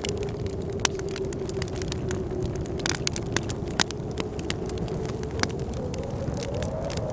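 Wood fire crackling, with irregular sharp pops and snaps, over the steady howl of blizzard wind that holds one wavering pitch and rises a little near the end.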